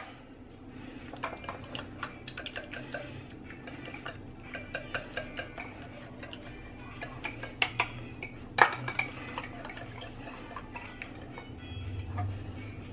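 Wire whisk stirring Cheez Whiz and milk in a small glass bowl, its wires clicking and clinking irregularly against the glass, with a few louder knocks near the middle.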